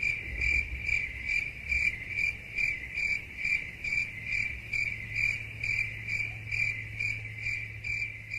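Crickets-chirping sound effect: a high chirp repeating about twice a second over a steady low hum, the stock cue for an awkward silence.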